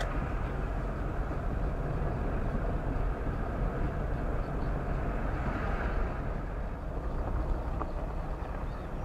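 A car being driven: a steady low rumble of engine, tyres and road.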